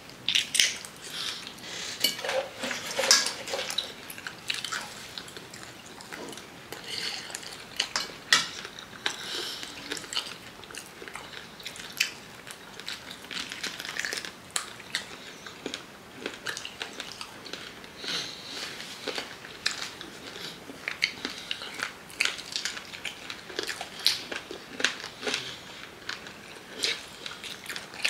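Two people eating chicken feet and fries close to the microphone: biting and chewing with many short, sharp clicks, the loudest about three and eight seconds in, and now and then a fork clinking on a plate.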